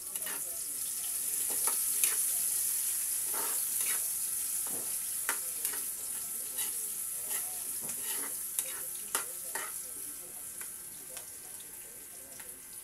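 Chopped onions and garlic sizzling in hot oil in a black wok, stirred with a metal spatula that scrapes and taps against the pan many times. The sizzle is loudest in the first few seconds, just after the onions go in, and slowly dies down.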